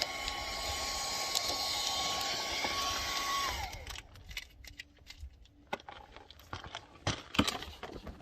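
A small handheld electric blower runs steadily with a whine, warming sticker glue. It is switched off about three and a half seconds in, and its whine falls as the motor spins down. A few sharp clicks and taps follow.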